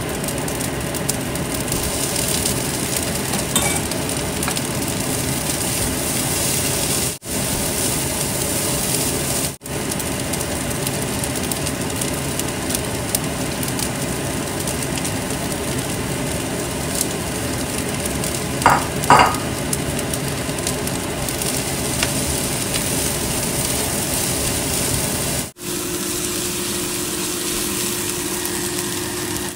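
Fried rice with corn and diced vegetables sizzling in a nonstick wok as a spatula stirs and turns it, a steady frying hiss. Two short clinks come a little before two-thirds of the way through.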